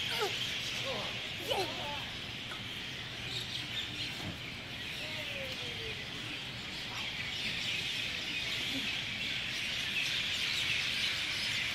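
Dense chorus of many birds chirping at once in the garden trees, a steady high twittering that grows a little louder toward the end.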